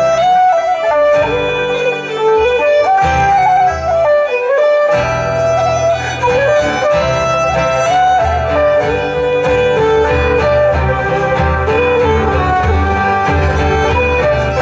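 Live instrumental traditional dance tune, a quick fiddle melody over strummed guitar accompaniment, played by a band on stage.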